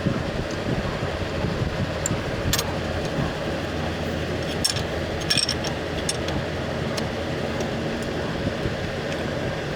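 Steady low background hum and noise, with a handful of short, light metallic clicks and ticks from hand tools working on metal, a few seconds apart, as the AC clutch installer tool is worked on the compressor.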